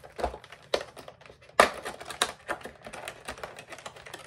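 Irregular clicks, taps and light knocks of a makeup brush set's box being handled and opened, with the sharpest knock about a second and a half in.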